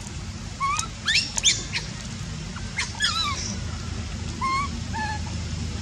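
Baby macaque crying: a series of short, high-pitched squeaks and cries that bend up and down in pitch, several bunched together about a second in and a few more spaced out after.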